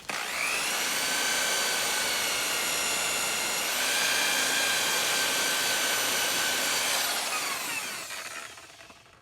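Electric buffer spinning up with a whine and running with a rough scraping noise, typical of a screwdriver held against the spinning buffing pad to scrape off hardened polishing compound. Its pitch falls as it winds down near the end.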